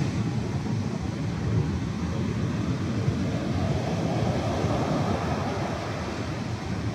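Small surf breaking close by on a sandy beach, with a wave's foam washing up the sand in a swelling hiss about halfway through. Wind rumbles on the microphone underneath.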